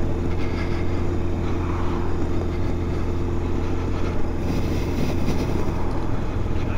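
Motorcycle engine running at a steady road speed while riding, a constant low hum, with wind and road noise.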